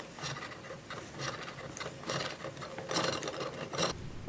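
Plastic Play-Doh candy-maker playset being twisted by hand, its plastic parts grinding and clicking in a run of uneven rasping strokes as the Play-Doh is pressed down to form candy balls.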